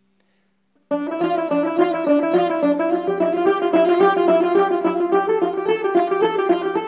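Persian tar played with a brass plectrum in a quick, even stream of single notes, a scalar practice pattern. It starts suddenly about a second in, and the line of notes steps higher near the end.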